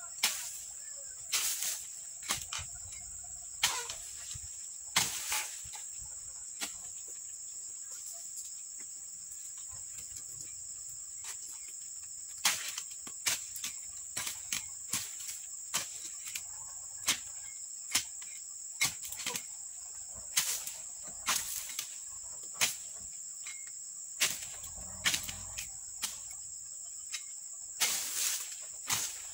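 Dodos, a chisel-bladed pruning pole, chopping into oil palm frond bases: repeated sharp chops about once a second, thinning out for a few seconds in the middle. A steady high insect chorus runs underneath.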